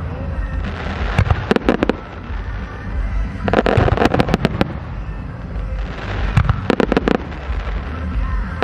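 Aerial firework shells bursting in several quick volleys of sharp bangs, with music playing under them.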